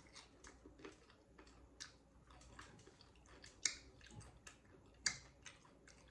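A person chewing a mouthful of loaded tortilla-chip nachos close to the microphone: faint, irregular crunching and clicking, with two sharper crunches in the second half.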